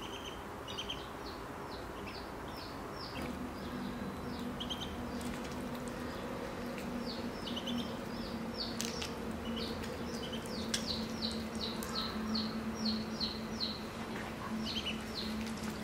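Ducklings peeping: runs of short, falling chirps, several a second, that stop and start. A steady low hum sits underneath from about three seconds in.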